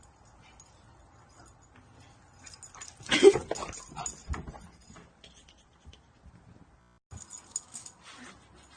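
A dog vocalizing, with one loud burst about three seconds in, followed by a few quieter sounds.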